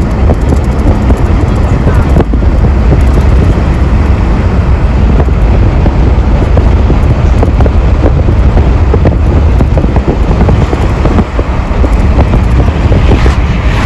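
Steady deep rumble and road noise of a moving road vehicle, heard from inside it, with some wind on the microphone.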